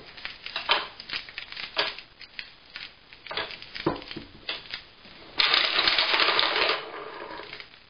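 Glass marbles clicking along the wooden rails and rockers of a binary marble adding machine. About five and a half seconds in, many marbles fall at once through the rockers in a dense wooden clatter as the addition carries from bit to bit, then the clatter tapers off.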